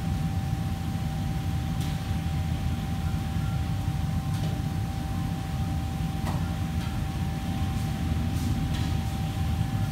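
Steady low rumble with a constant hum tone of kitchen machinery, with a few light clinks and clatters of dishes and utensils scattered through it.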